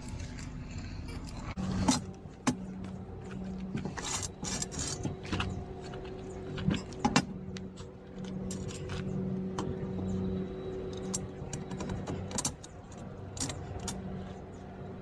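Scattered metallic clicks and knocks of linear rails and loose bolts being handled on a steel workbench, over a steady low hum that begins about a second and a half in.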